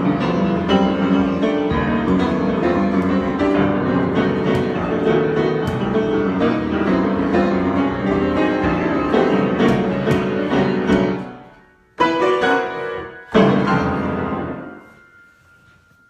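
Solo piano improvisation, densely played, dying away about eleven seconds in; then two final chords struck about a second and a half apart, each left to ring out and fade.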